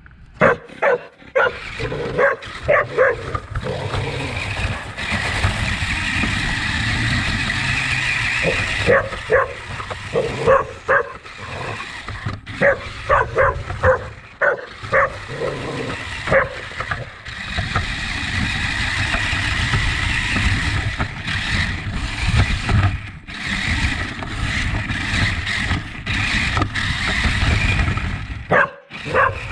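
A dog barking and yipping in quick runs of short calls. In stretches between the runs, a remote-control toy car's motor runs steadily.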